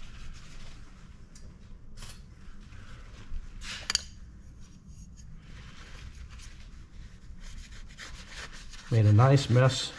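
Paper towel rubbing over an aluminium intake pipe as it is wiped clean, with a couple of sharp knocks from the pipe being handled, the loudest about four seconds in.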